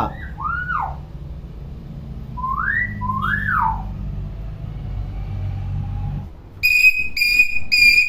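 Common hill myna whistling: one rising-and-falling whistle, then two more about two and a half seconds in. Near the end comes a run of loud, even beeps, about two a second.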